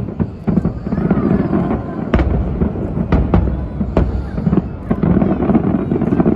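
Aerial fireworks bursting: several sharp bangs over a continuous deep rumble of booms that grows heavier about two seconds in.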